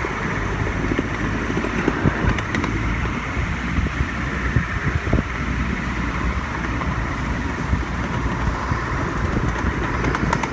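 Miniature ride-on train running along its track: a steady rolling rumble of wheels on rails, with scattered clicks.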